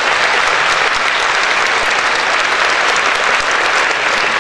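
Large seated audience applauding: dense, steady clapping that fills a big hall.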